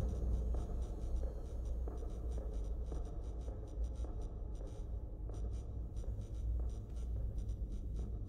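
Irregular faint scratching and scraping over a steady low rumble.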